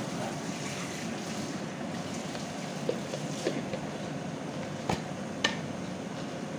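Mutton liver sizzling and bubbling in oil in a saucepan, a steady hiss, with a few light taps in the second half.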